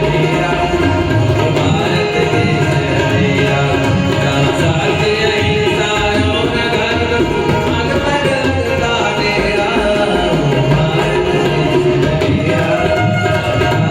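Indian-style music: tabla playing a steady rhythm under melodic instruments.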